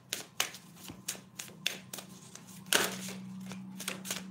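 A deck of oracle cards being shuffled by hand: a run of quick, sharp card snaps and slaps, with a longer, louder rustle a little under three seconds in.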